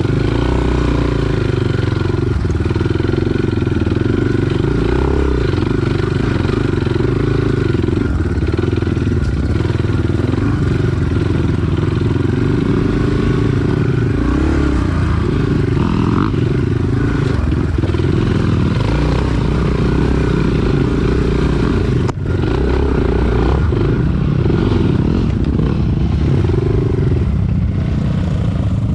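Enduro dirt bike engine running under way on a dirt trail, its note rising and falling with the throttle.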